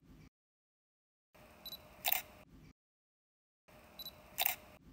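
Camera shutter sound effect, twice, about two and a half seconds apart. Each is a faint hiss with a small click, then a sharp shutter snap, with dead silence between.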